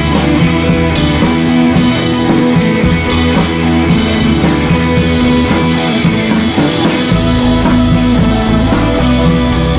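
Background music with guitar and drums, with a steady beat.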